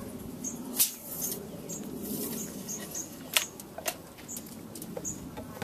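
Sharp clicks and taps from a cleaning rod being worked at the muzzle of a Mosin-Nagant rifle to push a swab through its bore, the loudest a little under a second in and again past three seconds. Throughout, short high bird chirps repeat about once or twice a second.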